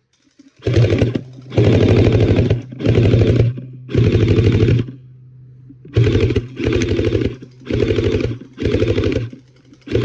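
Electric toy gel blaster firing on full auto in about nine short bursts, each under a second, with a fast clattering rattle of shots and the gearbox motor whirring.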